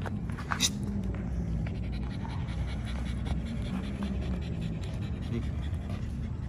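A dog panting steadily, with a couple of short sharp clicks about half a second in.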